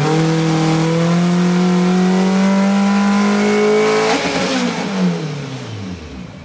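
Turbocharged Honda K24A2 four-cylinder making a pull on a hub dyno: the engine note climbs steadily under load for about four seconds with a thin high whine over it, then the throttle closes and the revs fall away, with a sharp pop about a second later.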